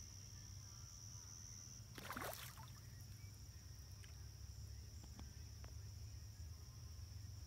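Faint crickets chirring at dusk as one steady high tone. About two seconds in there is a brief rush of noise, and a few faint ticks come later.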